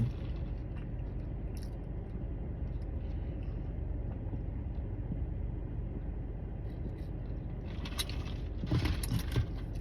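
Steady low rumble of a car interior, like an engine idling, with a few short clicks and rustles near the end.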